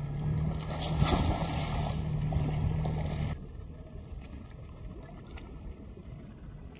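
Small boat's motor idling with a steady low hum, and about a second in a broad splash-like burst as a scuba diver rolls off the side into the water. The motor sound cuts off abruptly after about three seconds, leaving faint water and wind noise.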